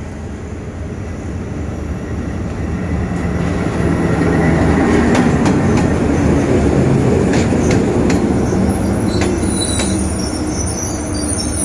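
Hitachi diesel-electric locomotive and its passenger coaches running slowly past at close range. The sound grows louder from about four seconds in, with sharp clicks of the wheels over rail joints and a faint high wheel squeal near the end.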